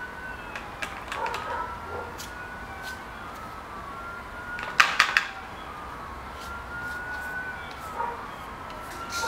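A siren wailing, its tone slowly rising and falling over and over. Scattered light clicks run along with it, with a sharp cluster of clicks about five seconds in as the loudest sound.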